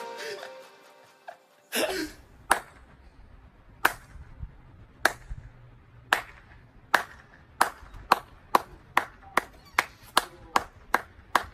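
Music fading out, then a string of sharp single knocks, far apart at first and speeding up steadily to about three a second, like an accelerating suspense sound effect; a faint low hum runs underneath.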